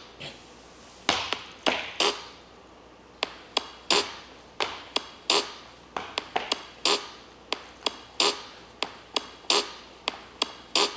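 A run of sharp taps or clicks, roughly two a second in an uneven rhythm, each with a short ring.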